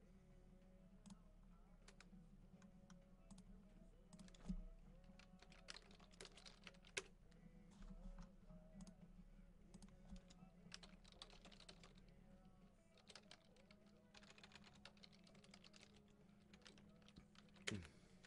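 Faint computer keyboard typing: scattered key clicks and short runs of keystrokes.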